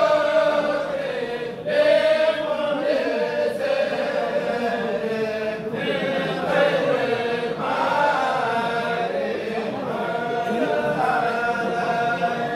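A kourel, a group of men, chanting xassidas (Sufi devotional poems) together without instruments, in long melodic phrases with short breaths between them.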